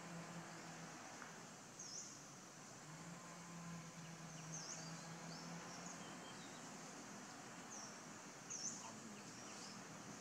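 Forest ambience: short high chirps repeating every second or two over a steady background hiss, with a faint low hum in the first half.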